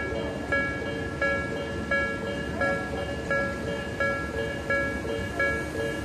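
Japanese railway level crossing warning bell ringing, a clanging tone repeating evenly about every 0.7 seconds with the barriers down: the signal that a train is approaching.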